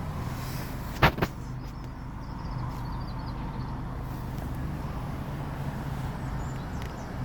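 VW Arteon 2.0 TSI four-cylinder turbo petrol engine running steadily at low revs, with two sharp clicks a fifth of a second apart about a second in.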